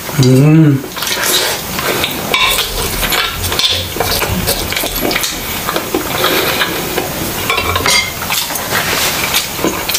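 Close-miked mukbang eating sounds: a spoon and fork clinking and scraping on ceramic plates as food is gathered, with chewing throughout.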